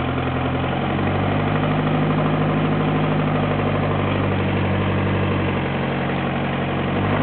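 Perkins four-cylinder mechanically injected diesel of a JCB 208S skid-steer backhoe running steadily. Its note shifts about a second in and changes again near the end as the outriggers are worked.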